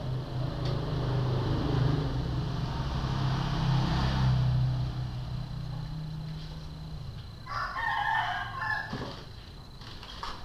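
A rooster crows once for about a second and a half near the end. For the first seven or so seconds a low steady hum runs underneath and then fades out.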